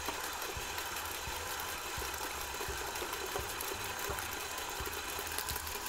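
KitchenAid stand mixer running steadily, its beater creaming butter and sugar as eggs are poured in.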